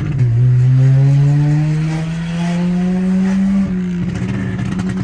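Volkswagen 1.6 MSI naturally aspirated four-cylinder engine revving up, its exhaust note rising steadily in pitch, then falling away about three and a half seconds in with a brief crackle.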